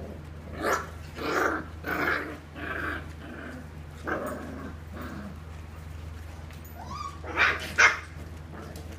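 Bernese mountain dog puppies barking and growling as they play-fight, in a string of short bursts, with the two loudest close together near the end.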